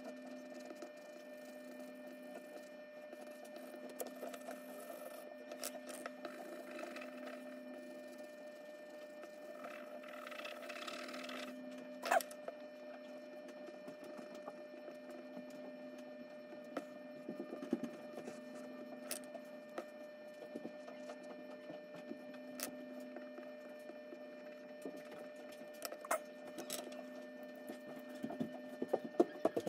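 Charcoal pencil scratching on paper in short shading strokes, with scattered sharp taps and clicks, the loudest about twelve seconds in, over a low steady hum.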